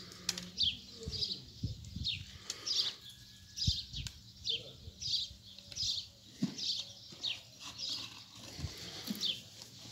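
A small bird chirping over and over, short high notes that fall in pitch, about twice a second. A few dull knocks sound in between, the loudest a little before the middle.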